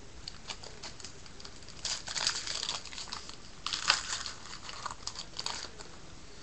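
Foil trading-card pack wrapper crinkling and cards being handled and flicked, a run of light clicks with two denser bursts of crinkling about two and four seconds in.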